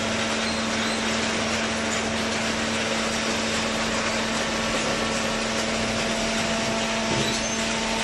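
Factory machinery running steadily: an even, unbroken noise with a constant hum through it.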